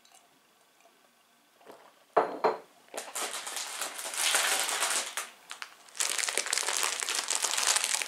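Plastic bag of rolled oats crinkling as it is picked up and handled, in two spells of a couple of seconds each, after a single knock about two seconds in.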